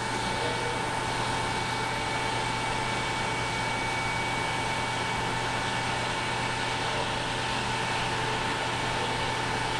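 Metal lathe running steadily with a constant hum and whine while a center drill in the tailstock drill chuck is fed into the end of the spinning workpiece to drill its center hole.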